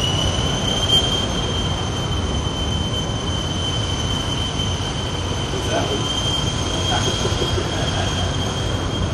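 A steady high-pitched whine over a constant low rumble. The whine rises slightly in pitch during the first second and then holds. Faint voices come in during the second half.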